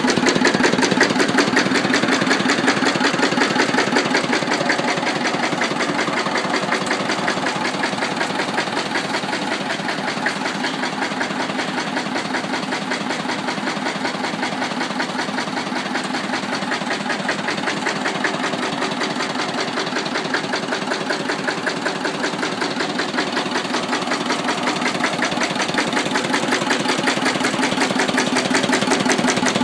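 Lister JP1 single-cylinder diesel stationary engine running steadily, a fast, even beat of firing strokes.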